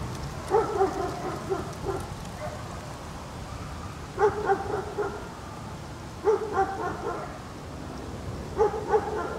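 Golden retriever barking in four short bouts of a few quick barks each, a couple of seconds apart.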